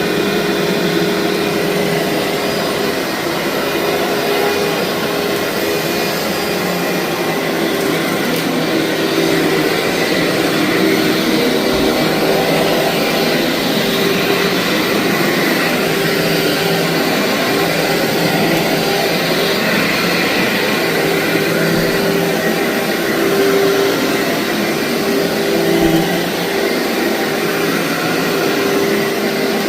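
Vacuum cleaner running steadily while vacuuming thick, fluffy carpet: an even rushing noise with a steady motor hum under it.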